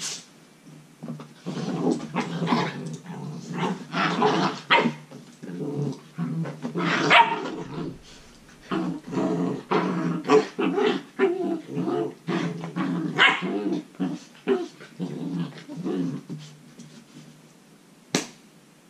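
Ten-week-old Belgian Malinois puppies play-growling and barking in irregular bursts while they wrestle, tailing off over the last few seconds.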